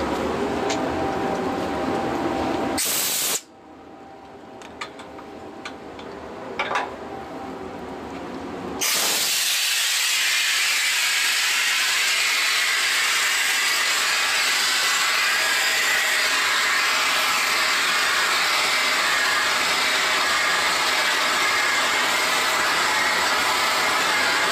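Compressed air hissing out of a train's air-brake hose during uncoupling: a loud, steady hiss starts abruptly about nine seconds in and keeps going. Before it, a lower steady noise cuts off suddenly at about three seconds, leaving a quieter stretch with a few small metallic clicks.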